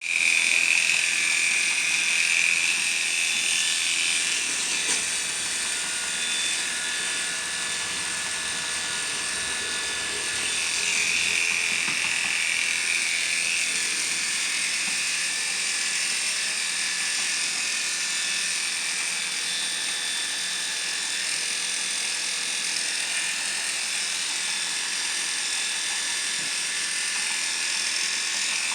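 Electric pet grooming clippers running with a steady buzz, a little louder in the first few seconds and again around eleven to thirteen seconds in.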